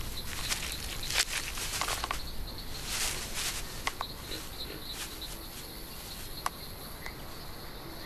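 Irregular crackles and rustles of a nest of dry leaves and twigs as American alligator hatchlings push their way out. A steady high insect drone runs underneath.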